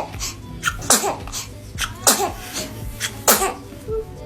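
Baby sneezing several times in a row, about once a second, each a sharp burst ending in a short falling squeak.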